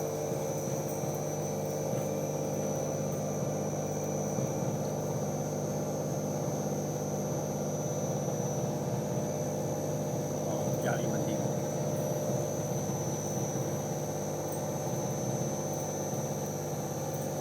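Common rail diesel injector test bench running with a steady electrical-mechanical hum.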